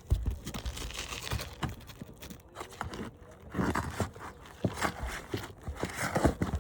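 GAF Natural Shadow asphalt shingles being pried up and their staples pulled by hand, with scraping, crackling and tearing mixed with sharp clicks and knocks. The shingles are cracking and separating as they come loose, the sign of a roof too brittle to be repaired.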